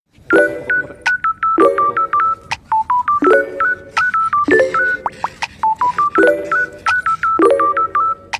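Background music: a bouncy tune of quick, short beeping notes over a chord that repeats every second or so.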